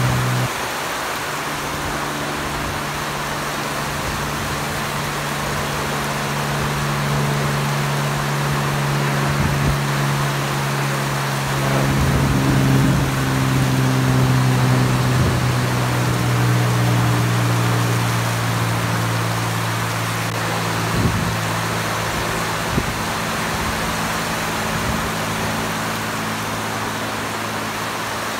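Piston engine of a propeller-driven biplane droning steadily over a constant hiss of rain. The drone swells a little about twelve seconds in.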